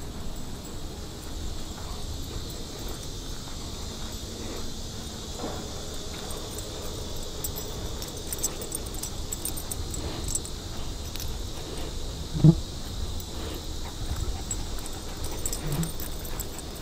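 Steady high-pitched drone of insects, with low rustling footsteps on grass and a brief louder low sound about twelve seconds in.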